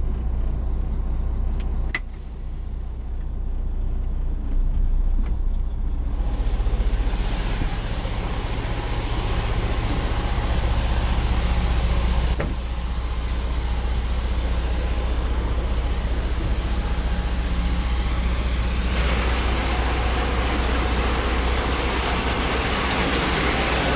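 Heavy farm machinery engines running steadily, a deep drone with a noisy upper hiss. The sound changes abruptly about 2, 6, 12 and 19 seconds in.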